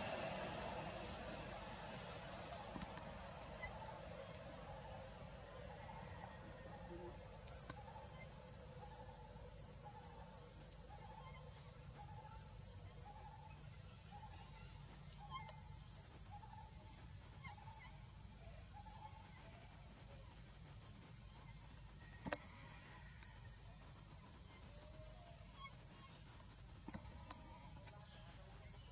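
Steady chorus of forest insects, a high even shrill, with a faint short note repeating about once a second for much of the time and one sharp click about two-thirds of the way through.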